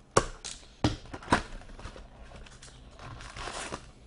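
A box cutter slitting the shrink-wrap and seal of a cardboard trading-card box: four sharp clicks and scrapes in the first second and a half. Near the end comes a longer rustling scrape as the cardboard box is opened.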